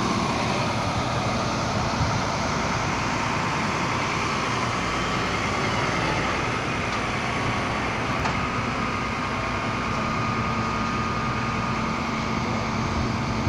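Steady hum of idling vehicle engines and passing traffic. A faint, thin steady whine comes in about eight seconds in.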